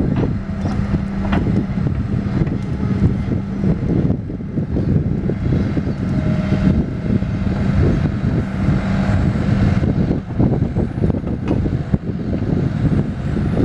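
Tracked excavator's diesel engine running loudly and steadily as the machine creeps forward on its tracks, with a constant low hum.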